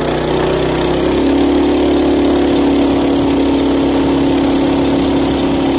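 Tillotson 212E single-cylinder four-stroke engine of a Mega Moto 212 minibike running hard as the bike launches from a standstill, its note holding a steady pitch, with wind rushing past.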